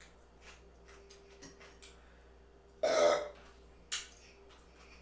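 A person eating loaded fries with a fork: faint clicks and mouth sounds, then one loud burp just under three seconds in, followed by a sharp click about a second later.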